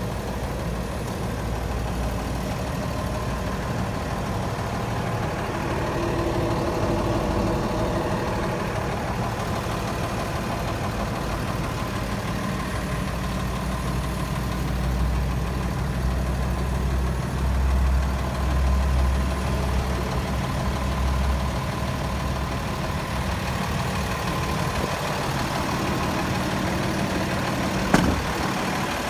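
Diesel engine of a Freightliner M2 106 truck idling steadily, with one sharp click near the end.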